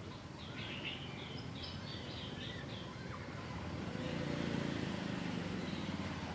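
A small bird calls a quick series of about eight short, high chirps over steady outdoor background noise, followed about four seconds in by a low rumble lasting a second or two.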